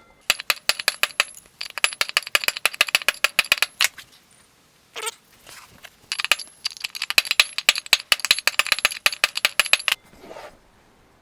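Hammer rapidly tapping a steel pin punch to drive the worn-out front wheel bearing from a quad bike's hub: sharp metal-on-metal strikes, several a second, in two runs with a pause of about two seconds between them.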